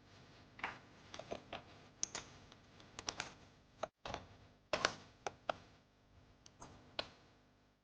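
Light, irregular clicks and knocks of the bicycle saddle and its loosened seat clamp being handled and turned round on the seat post.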